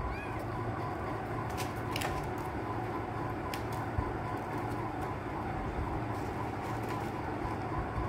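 A steady low hum and rumble, with a few sharp clicks scattered through it from a cat eating wet food out of a stainless steel bowl.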